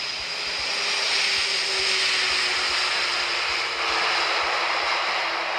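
Jet engines of a KLM Boeing 747-400 on landing: a loud, steady rushing noise with a faint tone slowly falling in pitch.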